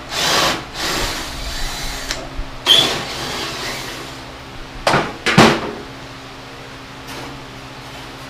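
Hand-tool work on the bolts holding a riding mower's front shroud: about two seconds of rasping and scraping, a sharp metallic clink, then two loud clanks about five seconds in as the sheet-metal shroud is worked free. A low steady hum stays underneath.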